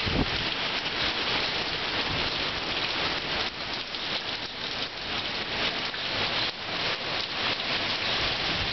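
Heavy hurricane rain pouring steadily, a dense hiss of rain on the ground and surroundings, with a brief low thud right at the start.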